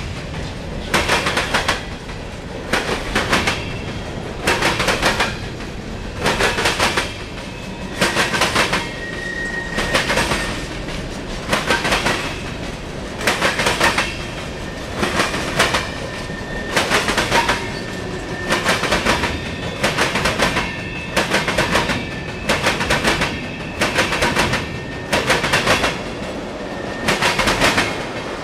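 Train cars rolling past close by, their wheels clacking over rail joints in a steady, repeating rhythm of paired clicks about once a second, over a continuous rumble.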